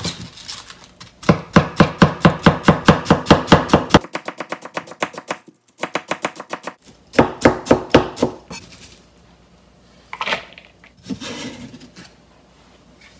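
Kitchen knife slicing cabbage into fine julienne strips on a plastic cutting board: quick, even knocks of the blade on the board, about six a second, in two runs. A few separate knocks follow near the end.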